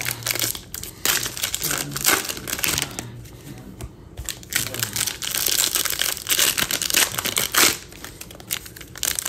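Foil wrappers of Panini Mosaic baseball card packs crinkling and tearing as they are ripped open by hand: an irregular run of crackles and rustles.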